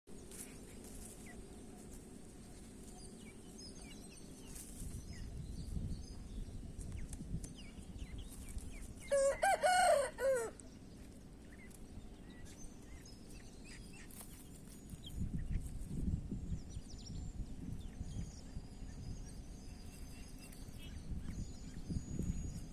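A rooster crows once about nine seconds in: a single call of about a second and a half with a falling end. Faint short high chirps and low bumping, rustling noise run underneath.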